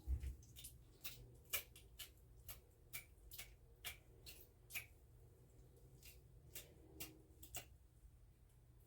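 Faint, irregular clicks and light taps, roughly one to two a second, of kitchen knife work on a cutting board as a whole chicken is cut up, over a low steady room hum.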